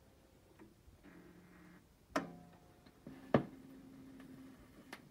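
Onkyo CP-1028R turntable's automatic tonearm mechanism at work as it leaves one track and seeks another: a faint motor whir with two sharp clicks, about two seconds in and just past three seconds in.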